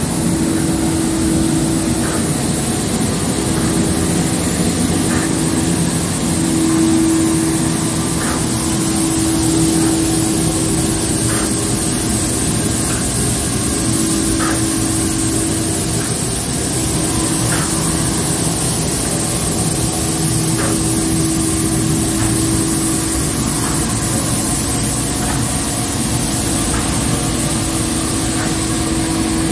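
Automatic spray-painting machine running: a steady machine hum under the hiss of pneumatic spray guns, with short light ticks about every second and a half.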